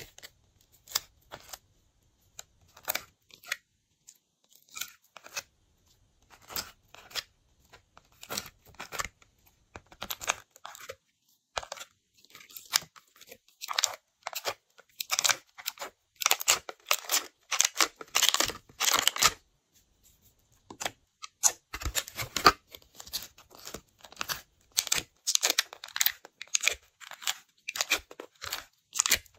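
Irregular sticky pops, crackles and scraping from hands working glossy slime and digging colour out of a clear plastic palette with a small spatula. The sounds are sparse at first and come thick and fast in the second half.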